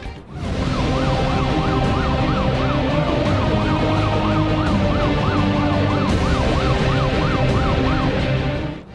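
Emergency vehicle siren on a fast yelp, its pitch rising and falling about three times a second, over a steady low rumble.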